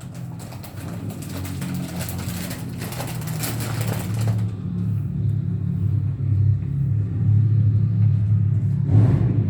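Capsule coffee machine's pump running as it brews: a steady low buzzing hum that grows slowly louder, with a hiss over it for the first four seconds or so.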